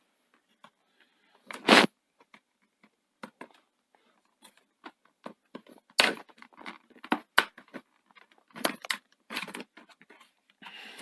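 Plastic laptop base being pried open with a pry tool: scattered clicks, scrapes and sharper snaps as the clips round the case edge are worked loose, the loudest about two seconds in, around six to seven seconds and near nine seconds.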